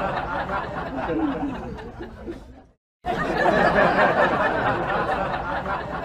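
A man laughing hard, as an added laugh track: the laughter fades out about halfway, breaks off to silence for a moment, then starts over again.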